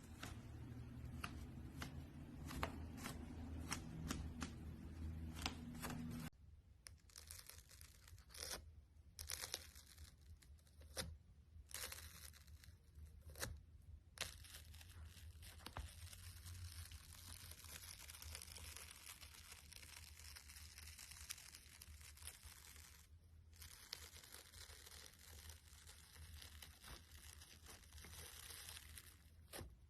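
Slime being stretched and squished by hand, giving soft crackly, sticky tearing and popping with many small clicks. A low hum runs underneath and stops abruptly about six seconds in.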